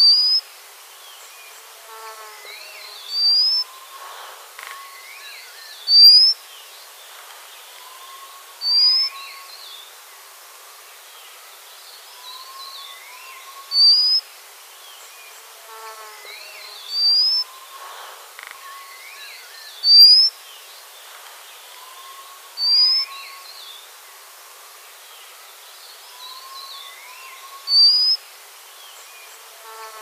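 White-capped redstart (white-capped water redstart) calling: a thin, high, rising whistle repeated nine times, roughly every three seconds. Softer calls and trilled notes of other birds sound in the background, including a falling series of notes twice.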